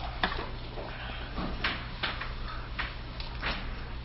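Eating sounds: about six short, separate knocks, scrapes and slurps of a spoon and fork against a metal bowl and of noodle soup being sucked up, over a low steady room hum.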